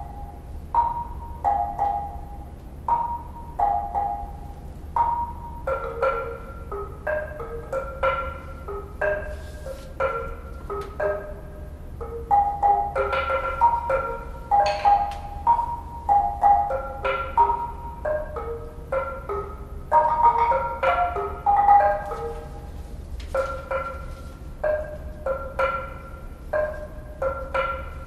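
Seven woodblocks struck with sticks by three players, at a few distinct pitches. Sparse single strikes at first, growing into a denser interlocking rhythm about six seconds in.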